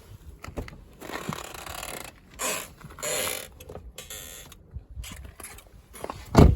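Car door being swung on its door checks, the check straps creaking and clicking as they pass their detents, which is the squeak of worn door checks. A loud thump comes near the end.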